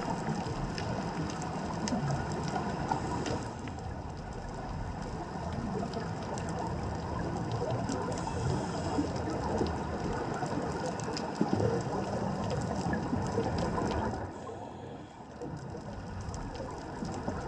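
Underwater ambience picked up by a GoPro in its housing on the reef: a steady low rushing water noise with many faint scattered clicks and crackles. There is one brief louder knock past the middle, and the noise dips for a moment near the end.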